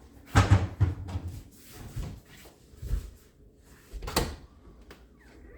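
Kitchen cupboard doors and contents being opened, shut and moved about: a string of separate knocks and clunks, the loudest about half a second in and a sharp one about four seconds in.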